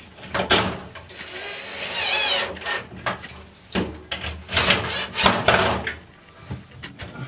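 Cordless drill-driver running in several short bursts, driving in the screws that hold a shower-door handle to the glass door.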